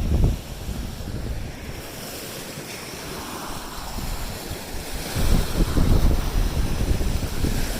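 Waves washing onto a lake beach, with wind buffeting the microphone in low rumbling gusts, strongest at the very start and again from about five seconds in.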